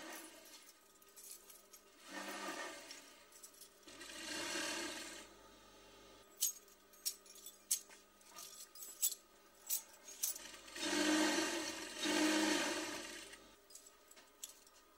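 Several sharp clicks and clinks spread over a few seconds around the middle, among softer swelling sounds.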